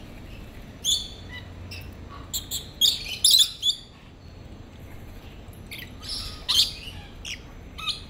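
Rainbow lorikeets giving short, shrill screeches and chatter. The loudest calls come in a cluster around three seconds in, with more just after six seconds.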